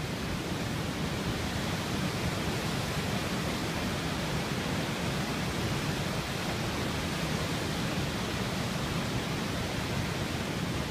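Steady rush of a waterfall pouring through a rocky river canyon.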